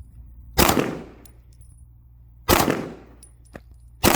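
Gunshots fired one at a time, three of them about two seconds apart with the third right at the end, each followed by a short echo.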